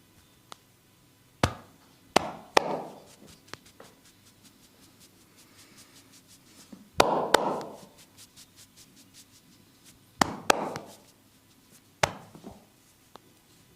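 A masseur's hands striking the body in sharp slaps, mostly in quick pairs a few seconds apart, each with a brief ringing tail, and faint clicks in between.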